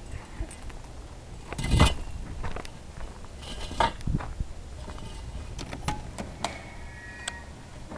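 Handling knocks and rustle from a handheld camera, the loudest a thump about two seconds in, then a run of short sharp clicks near the end as a door's knob and latch are worked.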